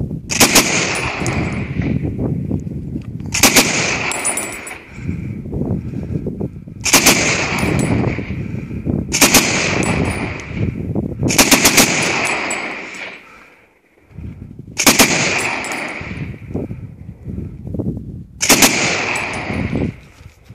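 Browning Automatic Rifle firing seven short bursts of automatic fire, a few rapid shots each, every two to four seconds. Each burst trails off in a long echo.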